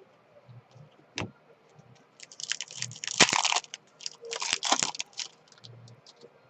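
Trading card pack wrapper crinkling as a pack is handled and opened, in two crackly spells, after a single sharp click about a second in.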